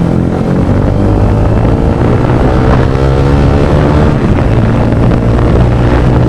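Motorcycle fitted with an Akrapovic full-system exhaust, running loud and being revved, its exhaust note rising and falling in pitch around the middle.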